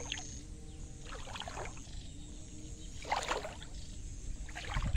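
Shallow pond water splashing in three short bursts, about a second and a half apart.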